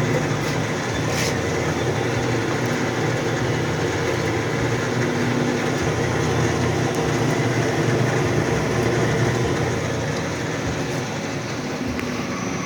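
Vertical bandsaw running steadily, a continuous machine hum with a few steady tones, and a brief tick about a second in.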